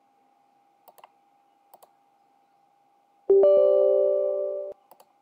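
A few faint mouse clicks, then about three seconds in a loud electronic chime: several steady tones at once that start suddenly and fade out over about a second and a half.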